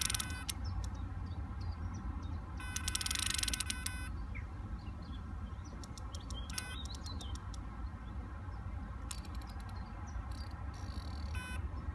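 Carp fishing bite alarm beeping in bursts, with the rapid ticking of line running off the reel's spool: a fish taking line on a run. The longest burst runs for over a second around three seconds in, and shorter ones come near the middle and toward the end.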